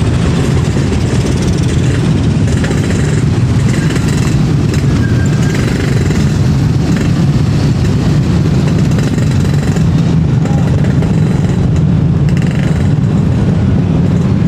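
Steady low rumble of many motorcycle and car engines running in traffic at a railway level crossing.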